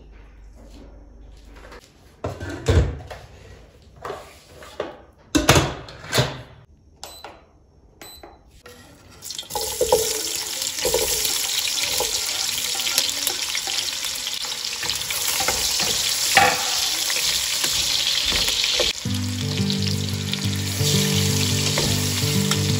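Chopped onions sizzling in hot oil in a pot as they are tipped in and stirred with a wooden spoon; the hiss starts suddenly about ten seconds in and stays loud. Before it come several separate knocks and clatters, and background music comes in near the end.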